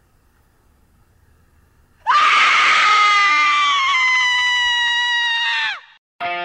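A long, high-pitched human scream starting about two seconds in, held for nearly four seconds and sliding slightly down in pitch before it cuts off.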